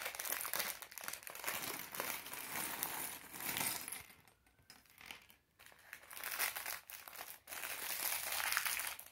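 Thin clear plastic Lego parts bag crinkling as it is handled and pulled open, with a few sharp clicks and a short pause about halfway through.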